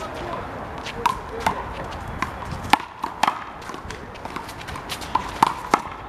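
A rubber handball smacking a concrete wall and court again and again in an irregular string of sharp hits, some with a short ring.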